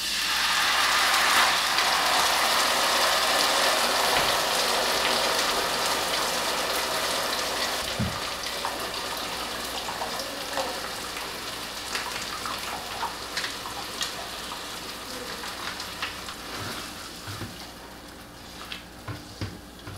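Tomato sauce sizzling as it hits a hot pan of onion and garlic fried in lard: a hiss that starts suddenly, then slowly dies down, with a few light clicks.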